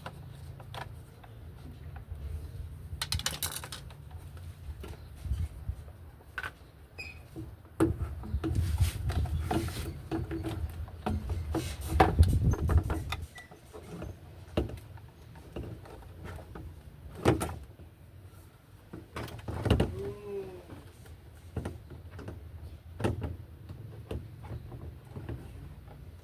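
Irregular clicks, knocks and handling noises over a low rumble, busiest through the middle stretch.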